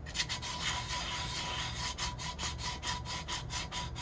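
400-grit sandpaper being rubbed lightly by hand over a glittered tumbler's sealed coat in quick back-and-forth strokes, about five a second. This is wet sanding to knock down the lumps in the sealant before the clear gloss goes on.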